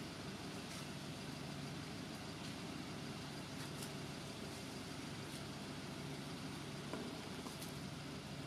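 Steady background noise: a low hum under an even hiss, with a few faint clicks.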